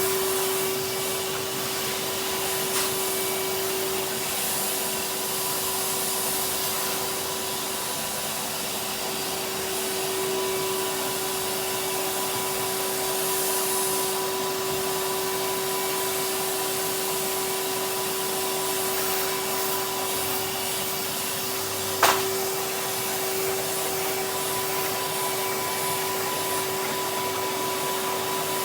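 Henry canister vacuum cleaner running steadily, a constant motor hum with airflow hiss. A sharp knock sounds once about three-quarters of the way through.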